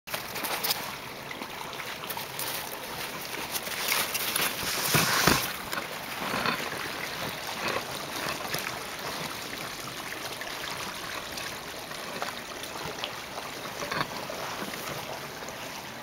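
Steady rush of water from a stream running under the ice of a frozen waterfall, with scattered clicks and a louder burst of noise about five seconds in.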